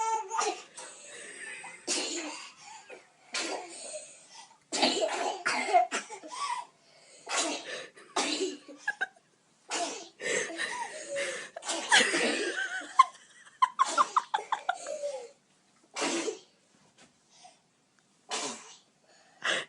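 Little girls sneezing again and again, mixed with coughing and bouts of laughter, in many short outbursts.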